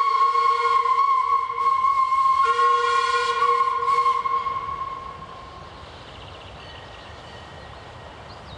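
Steam locomotive whistle on a metre-gauge line blowing one long blast, a chord of several notes that shifts slightly about two and a half seconds in and dies away a little past the middle.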